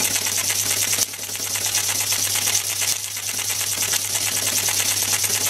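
Peake No. 1 model steam engine running steadily on live steam, with a rapid, even ticking beat and a steady low hum underneath.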